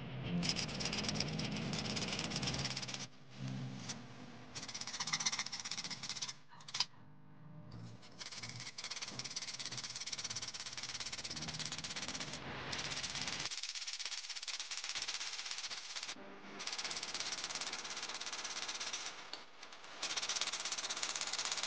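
Sandpaper rubbed by hand in quick back-and-forth strokes over a plumb bob, a dry rasping scratch that stops briefly several times between runs of strokes.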